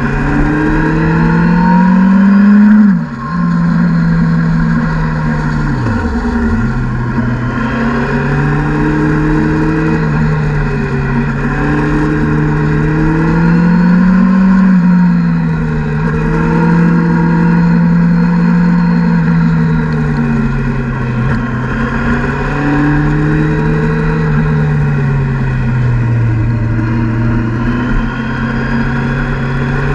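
Motorcycle engine heard from on board while riding, its pitch rising and falling with the throttle through a run of bends. The pitch drops sharply about three seconds in, and dips deeper about six seconds in.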